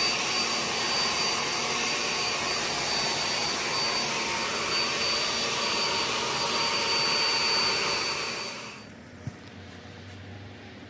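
Handheld hair dryer blowing steadily, with a thin high whine over the rush of air, heating vinyl wrap; it cuts off about nine seconds in.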